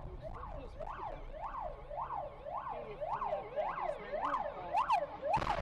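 An approaching ambulance's siren, rising and falling in pitch nearly twice a second and growing louder. A sudden loud noise cuts in just before the end.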